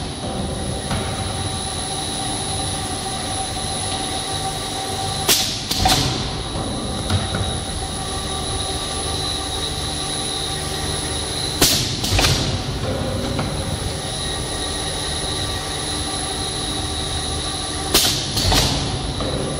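Spiral paper tube machine running, a steady mechanical hum with a thin whine from the winding belt and drive. Three times, about every six seconds, a sharp double clack cuts through as the pneumatic cutting unit cycles to cut the tube to length.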